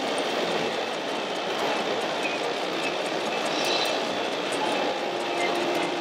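Steady din of a busy exhibition hall, with radio-controlled model trucks running.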